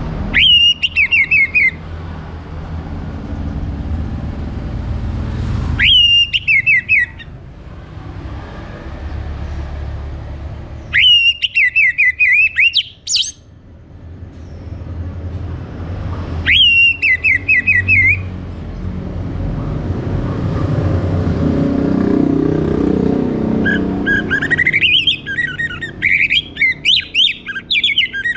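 Orange-headed thrush singing: four short phrases about five seconds apart, each a bright note dropping into a quick falling trill, then a longer run of fast, varied twittering near the end.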